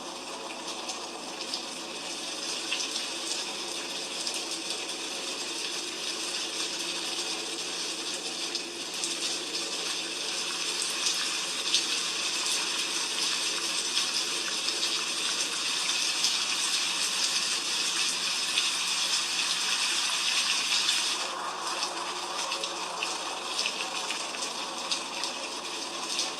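Heavy rain falling: a dense, steady hiss full of fine patter. About 21 s in, the high hiss eases and a lower splashing part grows.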